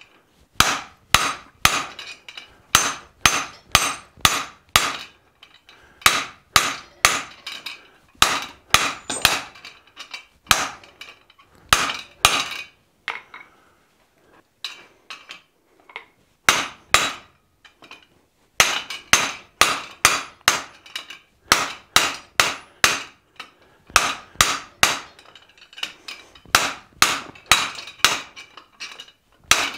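Hand hammer striking the top of a blacksmith's guillotine tool, forging a tenon on a red-hot iron bar between its dies. Sharp, ringing metal blows come in runs of about three a second, with a break of a few seconds around the middle.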